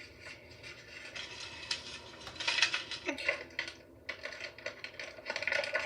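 Small plastic toy pieces and packaging being handled: rustling and scattered light clicks, busiest about halfway through.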